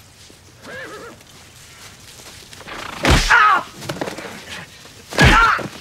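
A fistfight: two heavy thuds of blows landing on a body, about three and five seconds in, each with a pained grunt, and a faint groan about a second in.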